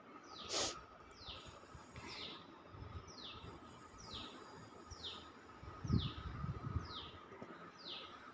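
A bird calling over and over: a short, high, falling chirp about once a second, over a faint steady high tone. A brief click sounds about half a second in, and a low thudding rumble near six seconds.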